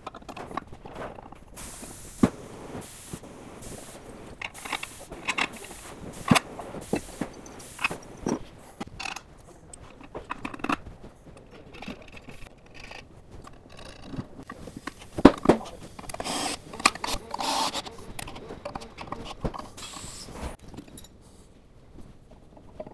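Metal parts being handled and fitted: an aluminium adapter plate set down onto a gearbox casing over dowel pins, with irregular clinks, knocks and scrapes of metal on metal. One knock about two-thirds through is louder than the rest.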